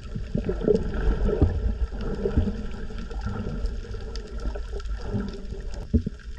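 Underwater sound picked up by a submerged action camera: a muffled rush and gurgle of water with scattered small clicks and pops.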